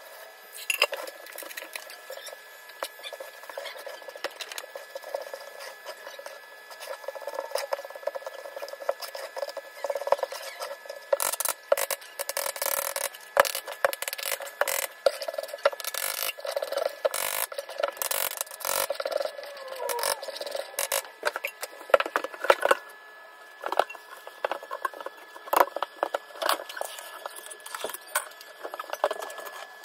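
Hand work with plaster of Paris on a tiled bathroom floor: quick scrapes and taps of a putty knife spreading plaster around a toilet flange, with sharper knocks now and then as the toilet bowl is set down into it.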